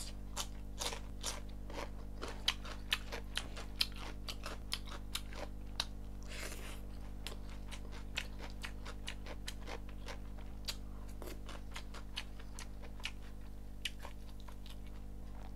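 Close-miked chewing of chicken curry and rice: wet mouth clicks and smacks, frequent in the first half and sparser later, over a steady low hum.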